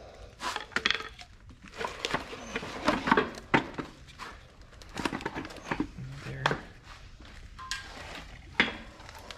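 Irregular metal clanks, knocks and scrapes as a pry bar and hands work a 2004 Mini Cooper S manual transmission loose from the engine block and separate the two.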